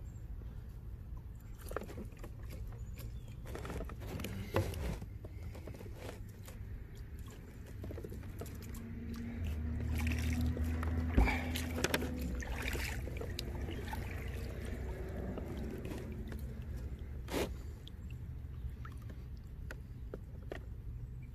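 Scattered clicks, knocks and rubbing from a fish, fishing gear and a paddle being handled in a kayak, over a low rumble that swells about ten seconds in, when the sharpest knock comes.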